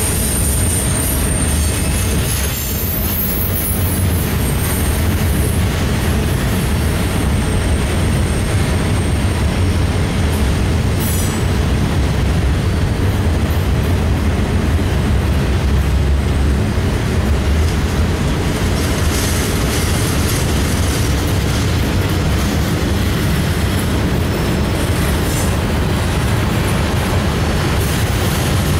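Freight cars rolling past on a curve, a steady rumble of steel wheels on the rails. A thin high wheel-flange squeal sounds in the first couple of seconds and then fades.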